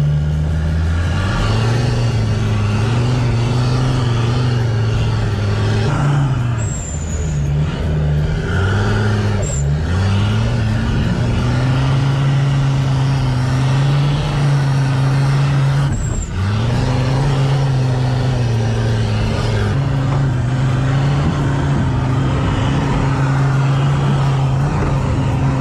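Off-road 4x4 engine running under load as the vehicle drives along a rough track, its note steady but dipping and climbing back up three times.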